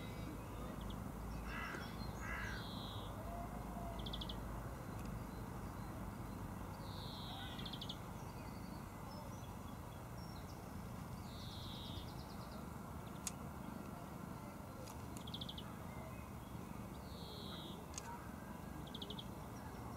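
Birds calling: a downward-sloping call repeated about every five seconds, with short rapid trills between and two lower calls about two seconds in, over steady background noise.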